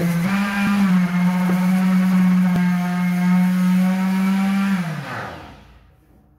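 Electric sheet sander with a rectangular pad running against a painted wall with a steady motor hum, dipping briefly in pitch near the start. About five seconds in it is switched off and winds down with falling pitch.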